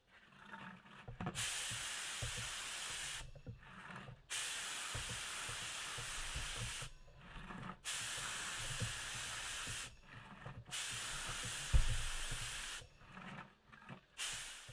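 Aerosol spray paint can spraying a small plastic part in bursts: four long sprays of two to three seconds each, with short pauses between them, then a brief fifth at the end. A low knock falls near the end of the fourth spray.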